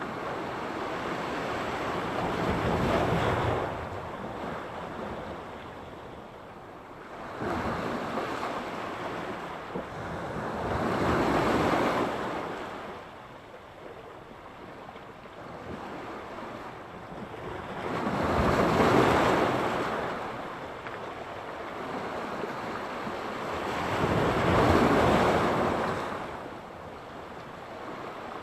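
Sea surf breaking on the shore, each wave swelling and washing back in slow surges about every six to eight seconds, with some wind on the microphone.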